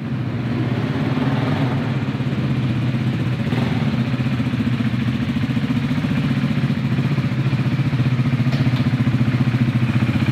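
Motorcycle engine idling with a steady, fast pulsing beat, growing slightly louder toward the end.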